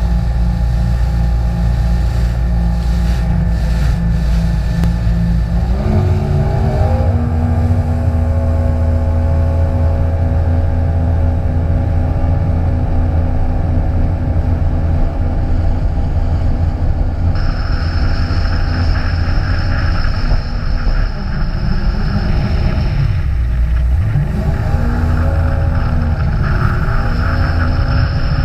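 Jet ski engine running at speed on the water; its pitch rises about six seconds in, dips briefly near the end as the throttle comes off, then climbs again. A high steady whine joins about two-thirds of the way through.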